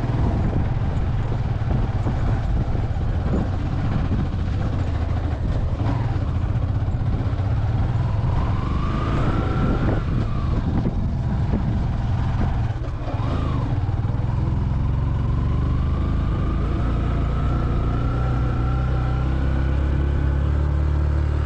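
Motorcycle engine running while climbing a mountain road, over a heavy low rumble. Its pitch rises as it accelerates about eight seconds in, briefly again near thirteen seconds, and in a long rise through the second half.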